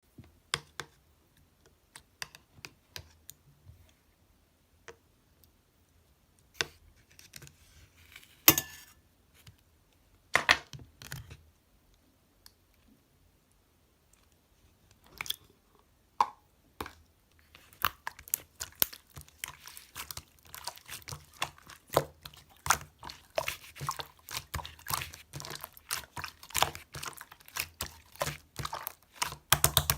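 Slime being handled and squished: scattered sticky clicks and a few louder pops and rustles at first, then, from a little past the halfway point, rapid continuous clicking and crackling as the slime is kneaded and pressed.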